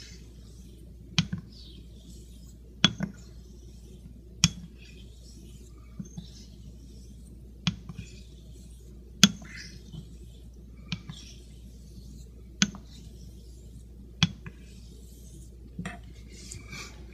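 A straight razor being honed on a wet synthetic waterstone to set a new bevel. Faint swishing strokes run along the stone, and a sharp click comes about every second and a half as the blade is turned over on its spine at the end of each stroke.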